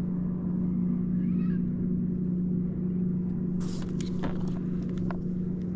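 Kayak motor running at a steady speed with an even hum, holding the kayak in position over a snagged lure; a few light clicks of handling come through about two-thirds of the way in.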